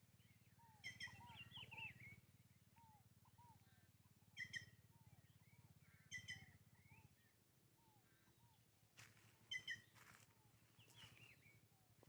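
Faint wild birdsong from several birds in dry caatinga scrub. A short, sharp call repeats every two to three seconds over a run of small, soft chirps and a couple of brief warbling phrases. A low steady hum underneath fades about seven seconds in.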